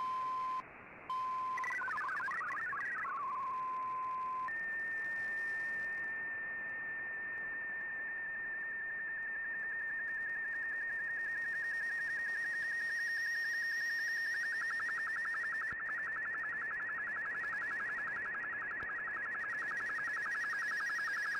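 Shortwave MFSK digital data signal from the receiver's speaker: a short run of hopping tones and a steady lower tone, then from about four seconds in a single steady whistle-like tone that turns into a fast warble about fourteen seconds in, the sound of an MFSK picture being sent line by line.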